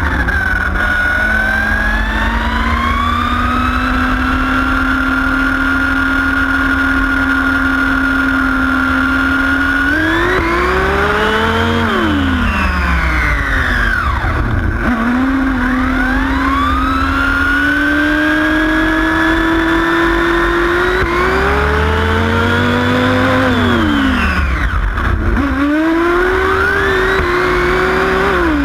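Nitro RC car's small two-stroke glow engine running at high revs, heard close up from a camera mounted on the car. The pitch holds steady for long stretches and rises and falls as the throttle is worked, over a steady low rumble.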